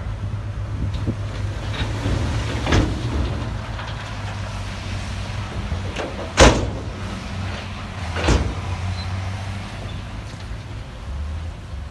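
Heavy diesel machine running steadily, with three loud bangs a couple of seconds apart; the middle bang is the loudest.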